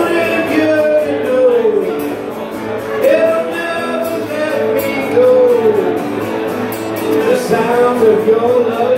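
A man singing into a microphone while strumming an acoustic guitar: a solo voice-and-guitar song, its melody sliding between held notes over steady strummed chords.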